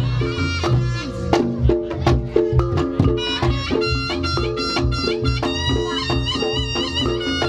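Reog Ponorogo gamelan music: a reedy slompret shawm plays a wavering melody over a steady, repeating pattern of drums and struck gongs.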